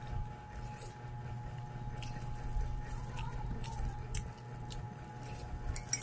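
A person chewing food with a spoon in her mouth: soft mouth sounds and a few faint clicks over a steady low hum. A metal spoon clinks sharply on the plate at the very end.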